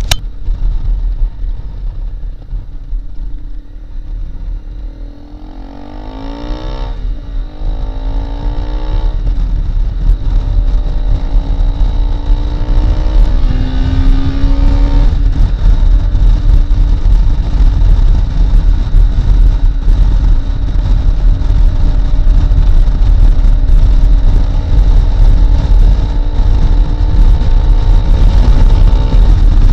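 Honda CRF250L's single-cylinder four-stroke engine under way. The revs climb and break off twice in the first half as it pulls through gear changes, then hold steady at speed. A heavy low wind rumble on the microphone grows as the speed rises.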